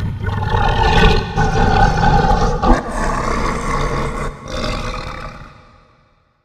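A long creature roar sound effect that breaks off briefly about four and a half seconds in, picks up again, and fades away.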